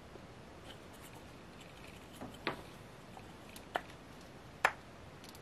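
Handling of wooden lamp parts, the LED-strip-wrapped tube and its turned wooden base, giving three short sharp clicks about a second apart, the last the loudest, over quiet room tone.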